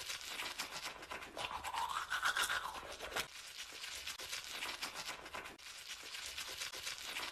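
A rapid, rough scrubbing sound, made of many quick scratchy strokes, louder in the first three seconds, with a faint rising tone about a second and a half in.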